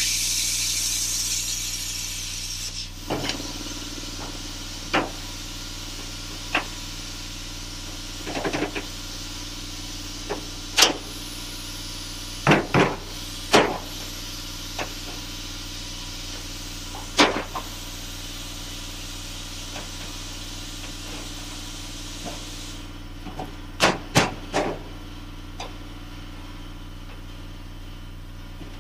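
Plasma cutter cutting through the steel floor pan, its arc hissing loudly for the first two to three seconds, then a fainter steady air hiss that stops about 23 seconds in. Over a steady low hum, sharp metal knocks and clanks ring out about a dozen times as the cut sheet is worked, several of them in quick pairs.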